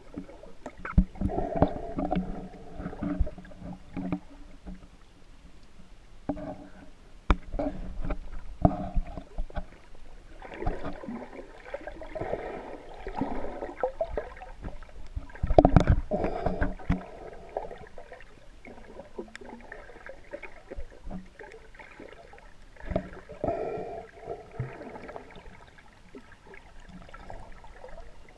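Muffled underwater noise heard through a GoPro Hero3's waterproof housing: irregular gurgling rushes and low rumbles of moving water, swelling every few seconds, with a few sharp knocks, the loudest about halfway through.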